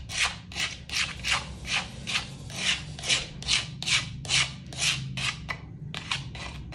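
A spatula scraping ground garlic paste out of a cobek mortar in quick, even strokes, about two and a half a second, slowing near the end.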